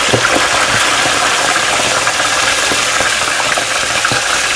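Shrimp deep-frying in a basket in an electric deep fryer: hot oil sizzling and bubbling steadily, with small crackles.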